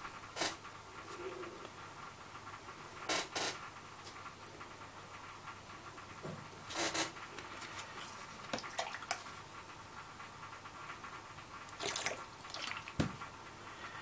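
A small clear plastic container and its lid being handled on a tabletop: scattered light clicks and taps of plastic, some in quick pairs, with faint handling rustle between.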